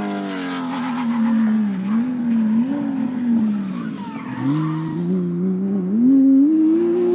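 Rally car engine revving hard, its pitch swinging up and down as the throttle is worked. About four seconds in the revs drop sharply, then climb steadily under acceleration to the end.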